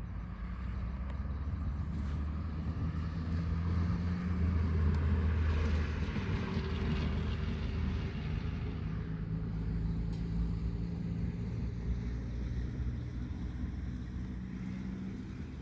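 An engine running with a steady low hum, swelling louder from about four seconds in and easing off again after about nine seconds.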